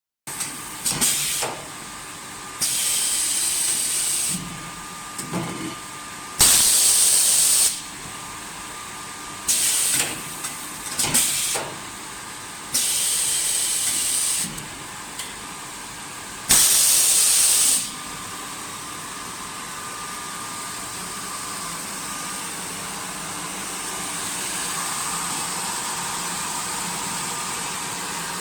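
Shrink-wrap packing machinery at work: a string of loud hissing bursts, each a second or two long, with clicks between them. After that a steady whir runs on.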